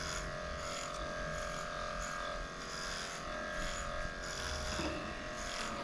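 Electric dog grooming clippers with an 8.5 blade running with a steady buzz while shaving a matted coat.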